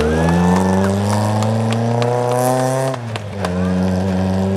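A Mk1 Ford Escort rally car's engine pulling hard, its note rising steadily for about three seconds. About three seconds in the note dips and drops in pitch, then it holds a steady lower note. A few sharp cracks come through the engine sound.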